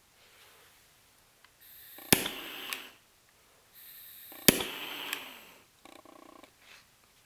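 Pistol-shaped butane jet torch lighter fired twice. Each time gas hisses, the igniter gives a sharp click, and the jet flame hisses for about a second before cutting off. A short buzz follows near the end.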